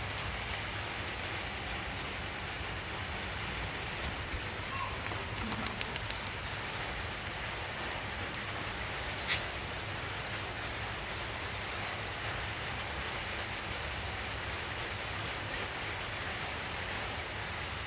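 A steady hiss of background noise, with a few faint clicks about five seconds in and one sharper click about nine seconds in.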